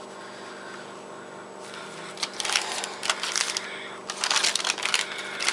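Rustling and scraping of fuzzy socks being handled and pushed up close to the microphone, starting about two seconds in and coming in quick irregular flurries over a faint steady hum.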